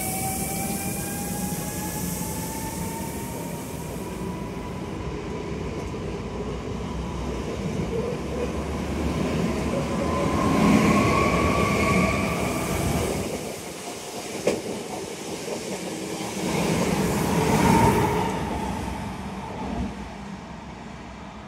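Two coupled Newag Impuls 45WE electric multiple units pulling away, their traction drive giving a slowly rising electric whine over the noise of the wheels on the rails. A single sharp click comes about two-thirds of the way through, and the train noise swells again near the end.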